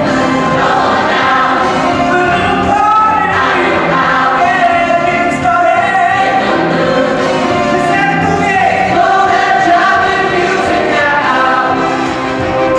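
Swing-style Christmas song performed live: male voices singing into microphones, with a group of voices and backing music, heard through the hall's sound system.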